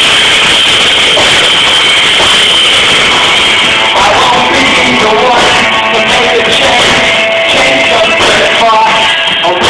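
Live rock band playing loud, with electric guitars, heard from the audience. From about four seconds in, held and bending pitched notes stand out above the dense band sound.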